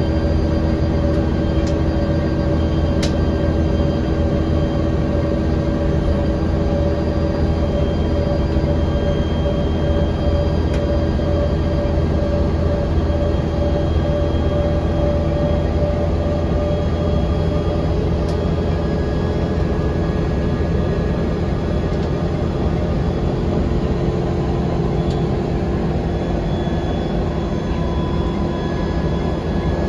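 Cabin noise of a 1999 Volvo B10L bus under way at a steady speed: the engine's drone and road rumble, with a held tone in it that fades away about halfway through, and a few light rattles.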